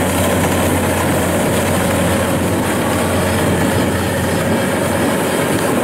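Kubota DC-93 combine harvester running steadily while it harvests rice: its engine and machinery make one continuous, even drone with a constant low hum.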